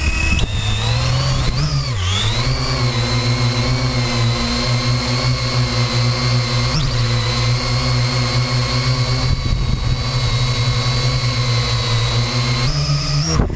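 Parrot AR.Drone 2.0 quadcopter's four electric motors and propellers whining steadily as it hovers, heard from a camera on the drone itself. The pitch dips briefly about two seconds in and steps up near the end.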